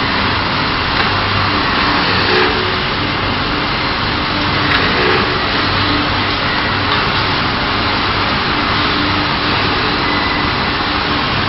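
Brake lining horizontal CNC drilling machine running: a loud, steady mechanical noise over a low hum.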